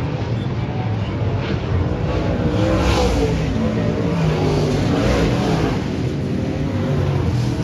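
Dirt-track stock cars racing around the oval, their engines revving and easing with wavering pitch, somewhat louder about three seconds in.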